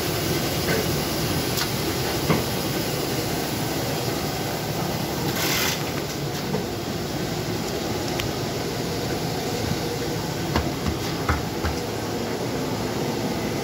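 DGM Smartfold 800SL Classic folder-gluer running at production speed: a steady machine noise from its belts and rollers, with a few sharp clicks and a brief hiss about five seconds in.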